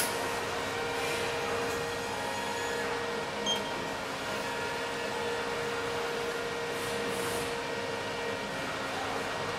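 Inverter MIG welding machine standing powered on, its cooling fan running with a steady hum and a steady low tone, and a short electronic beep about three and a half seconds in.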